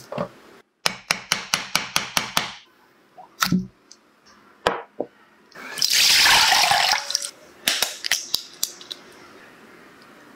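A quick run of about a dozen sharp taps, then coconut water poured from two opened fresh coconuts into a glass bowl: a loud splashing pour lasting about a second and a half, followed by a few light clicks.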